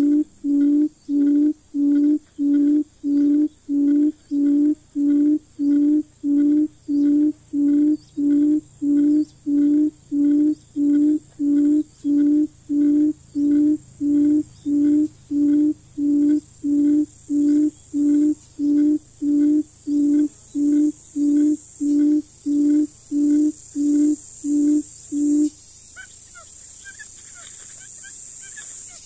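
Buttonquail (cút rừng) giving its low hooting call, one even note about one and a half times a second in a long series that stops a few seconds before the end. A steady high insect hiss runs underneath.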